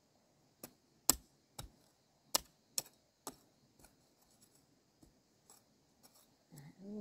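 A series of about a dozen sharp, uneven knocks and clicks. The loudest come in the first three seconds and the rest grow fainter. A short vocal sound rises and falls near the end.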